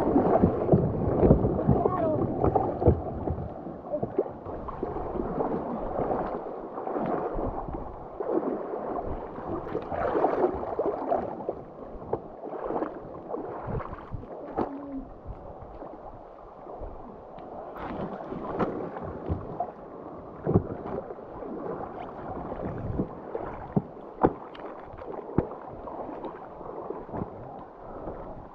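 Paddles dipping and water splashing and gurgling around a paddleboard and kayaks on a river, with scattered knocks. It is louder for the first few seconds, then settles lower.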